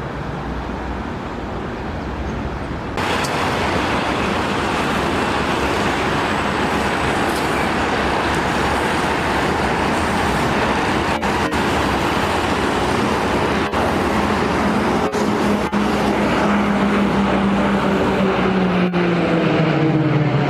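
Military aircraft flying past: a steady broad roar that gets louder suddenly about three seconds in, with an engine tone falling in pitch near the end as an aircraft goes by.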